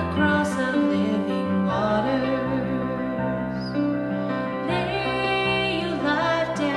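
Slow, tender music with a woman singing a melody over sustained instrumental chords.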